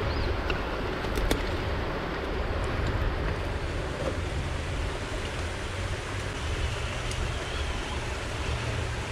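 Steady rushing noise with a low rumble and a few faint clicks.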